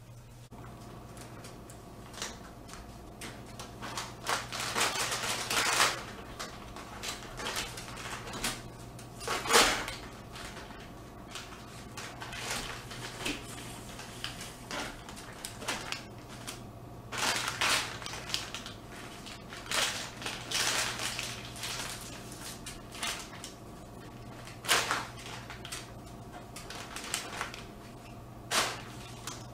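Dog rummaging in a plastic bag on a kitchen table: irregular crinkling and crunching with sharp knocks, in uneven bursts, the loudest about ten seconds in.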